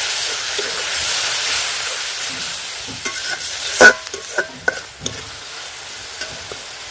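Onion and ginger-garlic-cumin masala sizzling in hot oil in a kadai just after a splash of water, the sizzle dying down over a few seconds. A spatula stirs it, knocking against the pan several times about halfway through, loudest once near four seconds, and the masala keeps up a faint sizzle afterwards.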